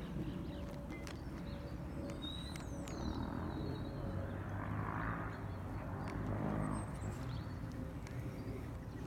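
Open-air ambience: a steady low rumble with a few short bird chirps about two to three seconds in, and a swell of louder noise in the middle.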